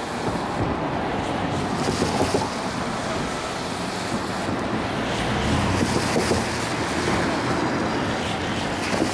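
Slow freight train rolling along, led by a caboose, with a heavy-load flatcar carrying a large generator: a steady rolling noise that grows a little louder about halfway through.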